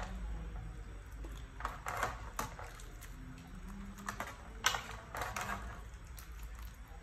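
Metal ladle stirring soup in a stainless steel pot, giving scattered light clinks and scrapes against the pot, the sharpest about two-thirds of the way through.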